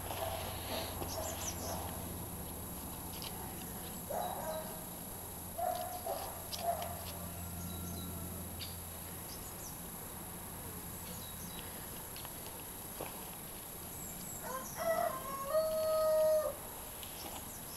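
A rooster crowing once near the end, a held call of about a second and a half that steps in pitch. A few shorter calls come earlier, over light clicks and scuffling.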